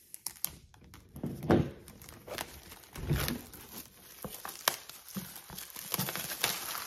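Clear plastic shrink-wrap crinkling and tearing as it is pulled off a boxed set of hardback books, with dull knocks from handling the box and books, the loudest about a second and a half in.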